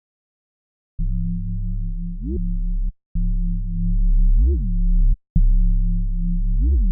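Three held low synth bass notes from a Native Instruments Massive patch, each about two seconds long, starting about a second in. Near the end of each note a higher tone sweeps up over the bass, and in the last two it comes back down.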